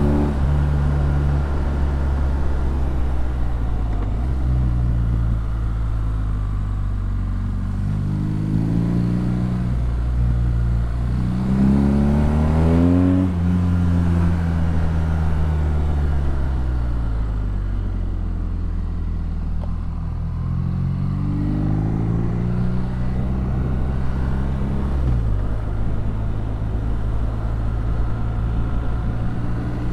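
BMW R nineT's air/oil-cooled boxer twin running through an Akrapovic exhaust while being ridden, its pitch rising and falling as the rider accelerates and backs off. The strongest climb, and the loudest moment, comes about twelve seconds in; the pitch drops sharply about four and again about twenty-five seconds in.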